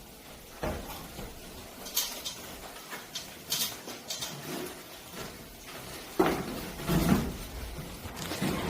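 Scattered knocks, clicks and light clatter of hard objects being handled, with the loudest cluster of knocks about six to seven seconds in.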